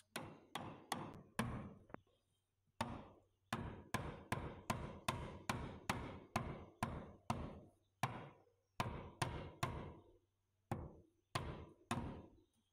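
Hammer driving nails overhead into rough-cut wooden eave boards: about thirty sharp blows in quick runs of roughly three a second, with a couple of short pauses.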